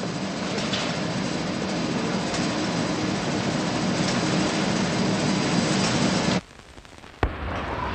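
Steady din of factory machinery: a low hum under a dense rushing noise. It cuts off abruptly about six and a half seconds in, and after a short lull a sharp click starts a lower, quieter hum.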